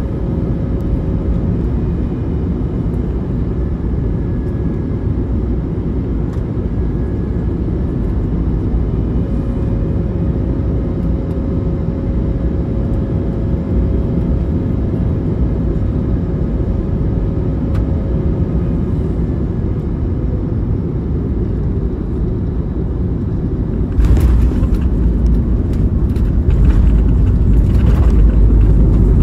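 Cabin noise of an Airbus A321neo on short final: a steady rush of air and engine noise from its Pratt & Whitney geared turbofans, with a faint steady whine. About 24 seconds in the wheels touch down: a sudden louder rumble with knocks and rattles as the gear rolls on the runway, heavier again about two seconds later.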